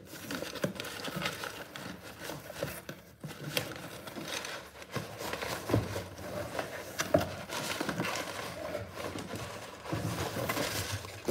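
Cardboard boxes handled: a product box scraping and sliding against the inside of a cardboard shipping carton, with irregular rustling, flap flexing and sharp knocks of cardboard.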